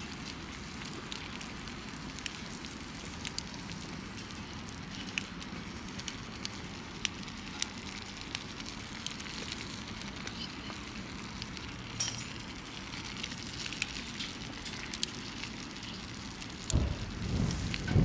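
Wood campfire crackling with scattered pops under a steel pan of stew simmering on the grill. Near the end a wooden spatula stirs and scrapes through the stew in the pan, louder than the rest.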